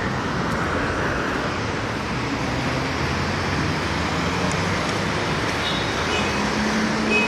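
Steady city street traffic noise. A low steady hum joins about six seconds in.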